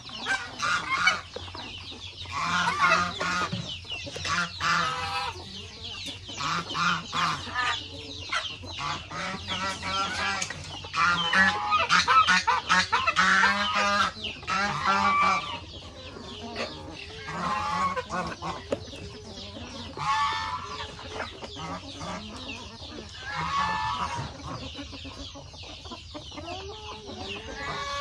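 A flock of chickens clucking and calling while they feed, the calls coming in bursts of a few seconds with brief lulls between them.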